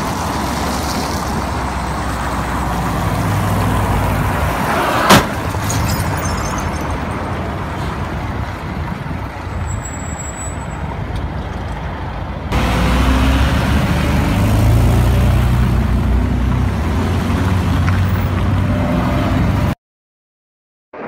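Street traffic: vehicle engines and road noise, with one sharp bang about five seconds in. About halfway it jumps to a louder engine hum, and the sound cuts off suddenly near the end.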